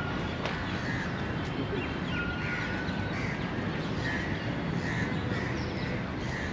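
Crows cawing in a run of short calls, about one every second, beginning a couple of seconds in, over steady background noise. A short steady high tone sounds just after the calls begin.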